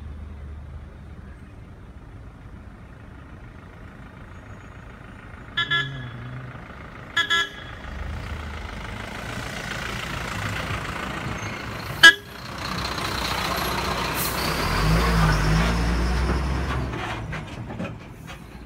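Road traffic passing close by. Two short vehicle horn toots come about a second and a half apart, a sharp knock follows, then a vehicle goes by with louder engine and road noise that fades near the end.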